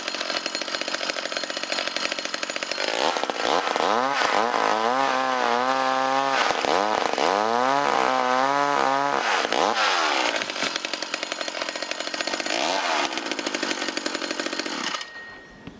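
Chainsaw running, its engine rising and falling in pitch several times as it is revved, then stopping abruptly near the end.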